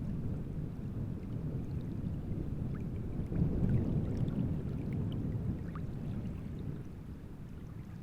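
Wind-driven waves lapping and splashing at the reservoir's edge, a low rumble with small scattered splashes; it swells about three and a half seconds in and eases toward the end.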